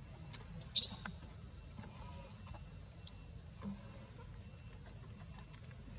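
A single brief, high-pitched animal squeal about a second in, the loudest thing here, over a faint steady outdoor background.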